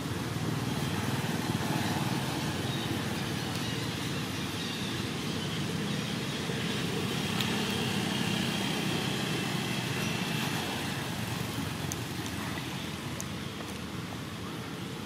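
Steady, low rumbling outdoor background noise with no distinct event, with a couple of faint ticks near the end.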